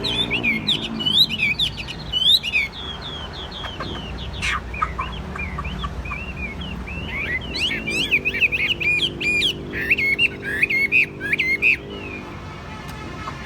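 Chinese hwamei singing: a fast run of varied, slurred whistled phrases, breaking off about three seconds in and starting again a second or so later to run on until near the end. A faint low droning hum lies beneath the song at times.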